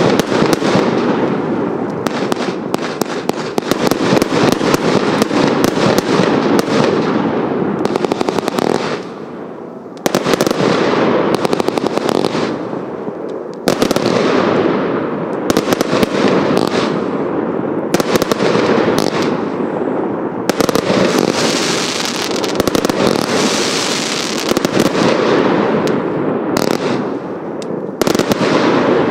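A 320-shot compound firework cake firing a rapid, continuous barrage of shots. There is a brief lull about nine seconds in, and the barrage picks up again at full strength a second later.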